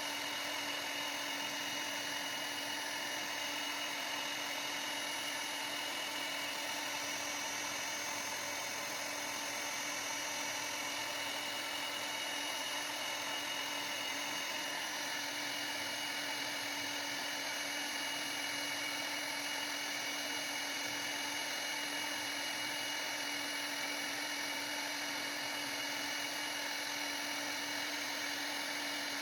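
CNC router spindle running with a steady whine, with several constant tones over an even hiss and no break or change in level.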